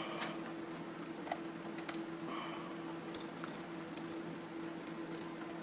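Faint, scattered clicks and ticks of a Phillips screwdriver and tiny screws on the aluminium case of a 2008 13-inch unibody MacBook as the small screws are undone and picked out, over a faint steady hum.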